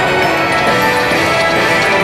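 Konami video slot machine playing its win celebration music while the win meter counts up, a sign that a bonus win is being tallied.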